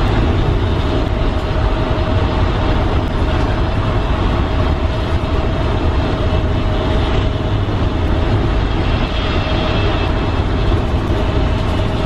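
School bus cruising at highway speed, heard from the driver's seat: steady engine and road noise with a strong low rumble and a constant mid-pitched whine.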